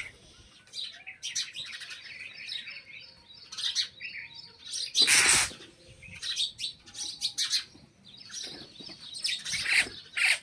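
Birds chirping: many short, high calls one after another, with a louder, harsher call about five seconds in and another shortly before the end.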